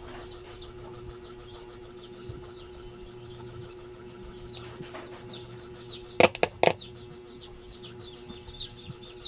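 A small radio speaker gives a few loud crackling clicks a little after six seconds in as a speaker wire is tapped to ground, over a steady low hum. The crackle comes from poor contact: the end of the wire is dirty. Faint high chirps repeat throughout.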